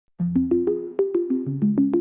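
Music: a quick melody of short, percussive pitched notes, about five or six a second, starting just after the beginning.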